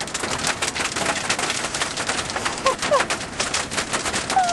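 Hail and rain pelting the outside of a car, a dense, rapid clatter of impacts on the roof and windows heard from inside the cabin. A few short sliding squeaks come through about three seconds in and again near the end.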